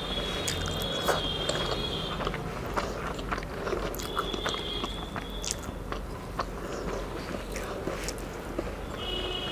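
Fingers mixing rice with fried greens on a plate, with small wet scrapes and clicks, then chewing of a mouthful near the end. A thin high tone comes and goes three times in the background.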